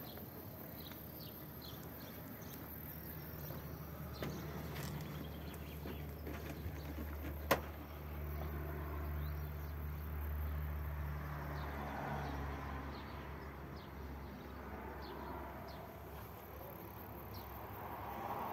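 Low, steady engine rumble that swells for a few seconds in the middle, with faint high chirps and one sharp click about seven and a half seconds in.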